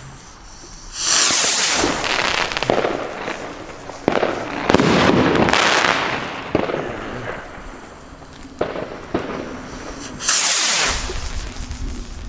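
Nico firework rockets: one launches with a loud rushing hiss about a second in, followed by several seconds of dense crackling from its glittering stars with scattered sharp cracks. A second rocket goes up with another rush about ten seconds in.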